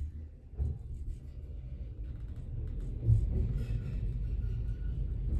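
Passenger lift car travelling down its shaft: a steady low rumble of the moving car, with one brief knock about three seconds in.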